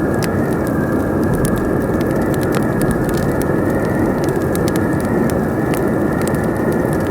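Strong, steady wind howling, with a thin whistle held at one pitch. Over it, a wood fire crackles with frequent sharp pops.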